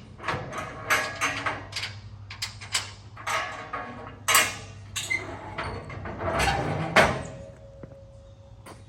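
An irregular clatter of knocks, rattles and scrapes over a steady low hum.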